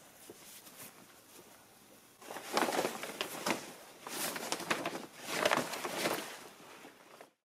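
A large green plastic sheet being lifted, unfolded and shaken out, rustling and flapping in three bursts starting about two seconds in. The sound cuts off suddenly near the end.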